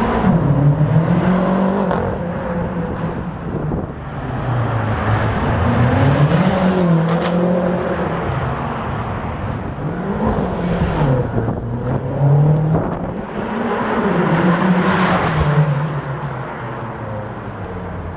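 BMW M5 engine accelerating hard again and again, its pitch climbing and then dropping several times.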